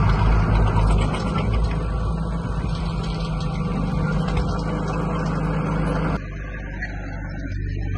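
Bulldozer's diesel engine running steadily. About six seconds in the sound drops suddenly to a quieter, thinner engine note.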